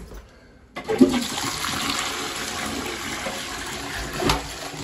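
Water gushing from a hose into a blocked toilet bowl, starting abruptly about a second in and churning the waste in the bowl as the blockage is flushed through.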